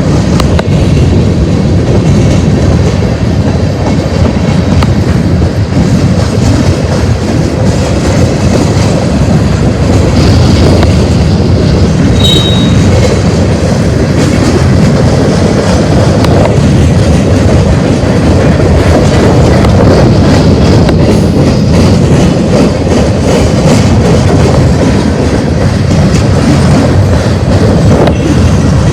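Freight cars of a long manifest train rolling past on the rails, a loud steady rumble and clatter of wheels on track. A brief high wheel squeal sounds about twelve seconds in.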